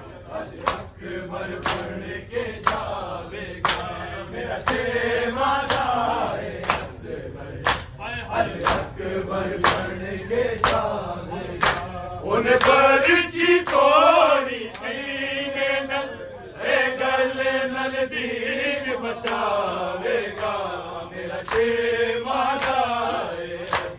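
Male voices chanting a Shia noha lament, with the men beating their bare chests in unison (matam) about once a second, a sharp slap on each beat.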